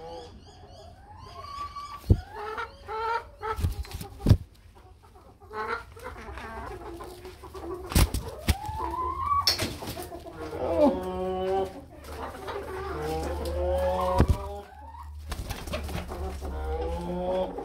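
Domestic hens clucking and calling, with repeated rising calls and quick runs of clucks. Several sharp knocks sound among them.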